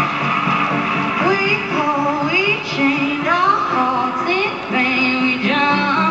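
A woman singing over instrumental backing music. Her voice comes in about a second in, sliding between notes over sustained accompaniment.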